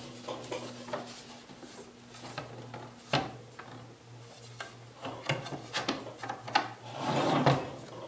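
Plastic sliders being pushed and slid into the slots of a Giffin Grip's plastic disc: scattered clicks and rubbing scrapes, with a sharp click about three seconds in and a louder scrape near the end.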